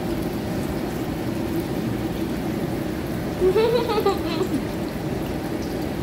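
Oil sizzling steadily in a pan of frying bok choy. A short hummed "mmm" comes a little past the middle.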